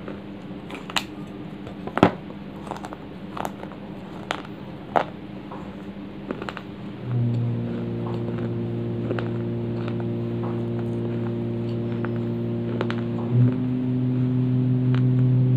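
Dry baked clay crunching and cracking as it is bitten and chewed: a handful of sharp cracks in the first half. About halfway through, a steady low mechanical hum starts and grows louder toward the end.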